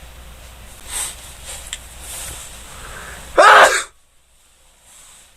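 A man sneezes once, loudly, about three and a half seconds in, after a couple of quick breaths in.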